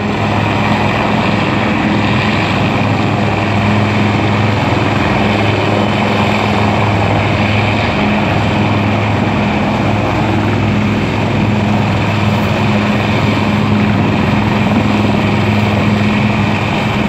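Helicopter running close by: a loud, steady drone of rotor and engine with a deep hum underneath that holds even throughout.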